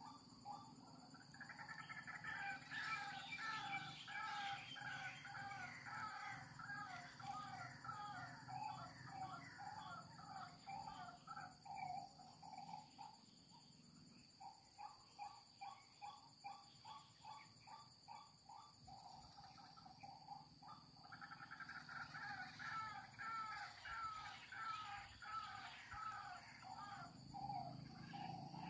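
A bird calling in long series of harsh, rapidly repeated notes, several a second, with a brief pause about halfway through. A thin, steady, high-pitched insect whine runs underneath.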